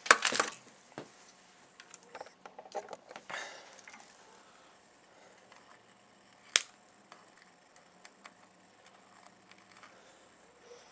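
A circuit board and pliers being handled: a loud rustle and clatter as the board is turned over at the start, then faint scattered clicks and one sharp snap about six and a half seconds in.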